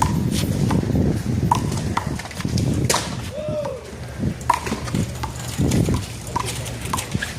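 One-wall handball rally: irregular sharp smacks of the rubber ball off players' hands and the wall, with a brief squeak about three and a half seconds in.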